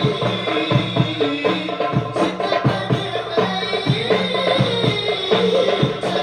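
Sholawat devotional singing accompanied by a steady, rhythmic pattern of hand-struck drums.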